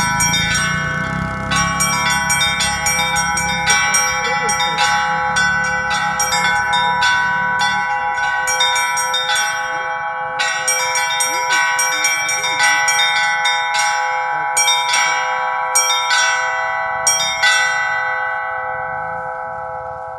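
Russian Orthodox church bells rung in a peal: rapid strikes on the small high bells over the steady ringing of the larger bells. The strikes thin out briefly near the middle and stop about three seconds before the end, leaving the bells ringing down and fading.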